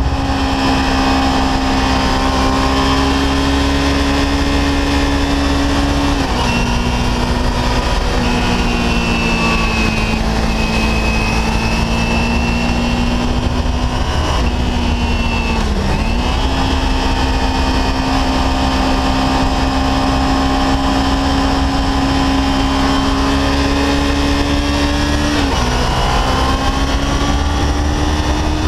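Kawasaki Ninja 300's parallel-twin engine running at a steady road speed under a heavy low wind rush. Its note steps down or dips briefly a few times, about six, sixteen and twenty-five seconds in, as the throttle is eased and reapplied.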